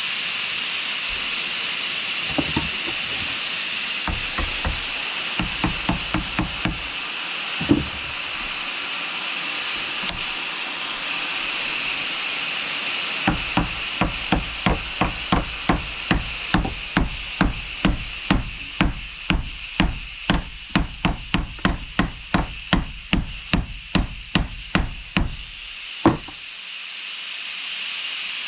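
Overheating pneumatic angle grinder left running on compressed air: a steady hiss of air with repeated knocks. The knocks come scattered at first, then settle into about two a second from about halfway through. The owner takes the overheating for something burning inside, likely the plastic vanes.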